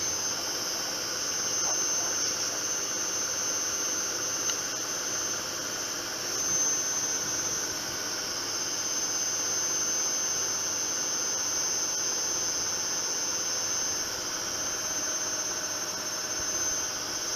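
Zanussi ZWF 1432 front-loading washing machine running, its drum turning with a steady high-pitched motor whine over an even mechanical hum.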